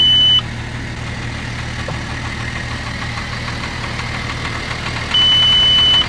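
Audi Q7 3.0 TDI V6 diesel idling while its air suspension raises the body to the lift level. Two long, steady, high-pitched beeps sound over it, one at the start and one about five seconds in, each lasting just under a second.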